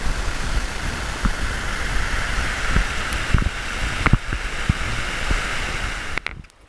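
Steady rush of river water running over rapids, with low thumps of wind buffeting the microphone. It cuts off abruptly near the end.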